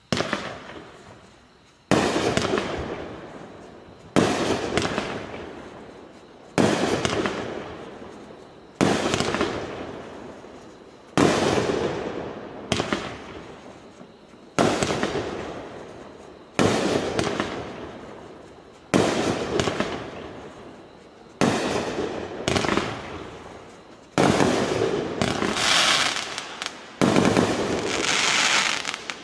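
Bright Star 'Vertical Reality' consumer fireworks cake firing shot after shot, about one every two seconds. Each is a sharp bang that dies away, and the last two near the end have a longer, brighter tail.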